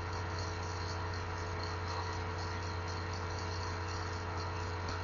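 Steady low electrical hum with an even background hiss; no distinct click, scrape or knock stands out from it.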